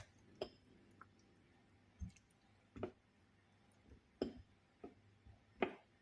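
Faint, scattered soft clicks and knocks, about seven short ones spaced unevenly, from sliced lemon being handled and put into a saucepan of water.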